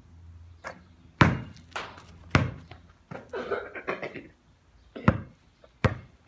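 Basketball bouncing on hard pavement: four heavy thuds at uneven intervals, with a few lighter knocks between them.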